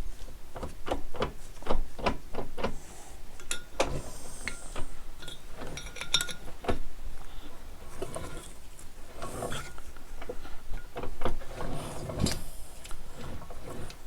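Irregular clicks, knocks and light clanks of hand tools and metal parts being handled while an engine is fitted to a garden tractor.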